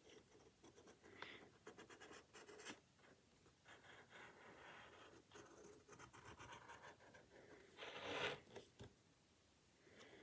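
Faint scratching of a pen drawing on paper in short, irregular strokes, with one louder rasp about eight seconds in.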